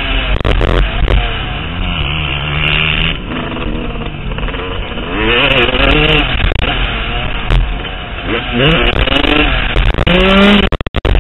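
Motocross bike engine revving hard, its pitch climbing and falling as the rider works the throttle through the track. Near the end it rises sharply in a panic-rev, then a rapid series of knocks and clatter breaks in as the bike and rider go over the bars and crash.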